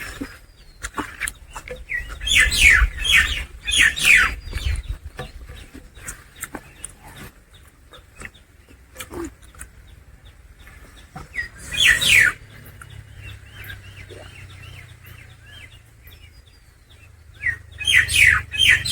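Close-up eating sounds from a man eating curry and rice by hand: loud, squeaky smacking and sucking in bursts, about two seconds in, again in the middle and near the end, with quieter chewing clicks in between.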